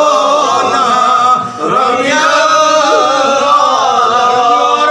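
A man's voice chanting in a drawn-out, melodic style, holding long notes with slow turns in pitch and a brief break about a second and a half in.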